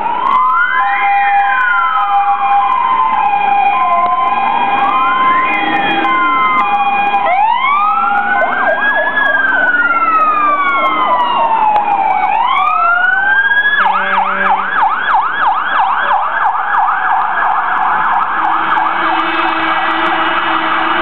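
Several fire engines' electronic sirens sounding at once as they set off on an emergency call: slow wails rising and falling, overlapping one another, until about fourteen seconds in a fast yelp takes over.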